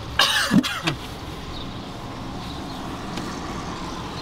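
Plastic washer-fluid reservoir filler cap being pulled open by hand: a brief scraping rustle with a couple of small knocks, under a second long, then steady background noise.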